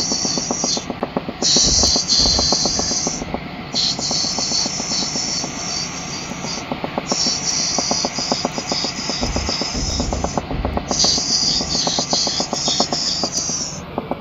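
Stockholm metro CX train running between stations, heard on board: steady running noise with a fast rattle, and a loud high hiss that comes and goes in stretches of one to three seconds.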